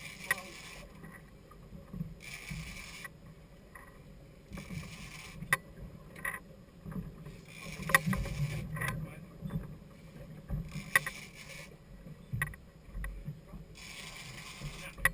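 A sportfishing boat with a low, steady rumble from the boat and water, a high hiss that swells and fades about every two seconds, and scattered sharp clicks and knocks, the loudest about eight seconds in.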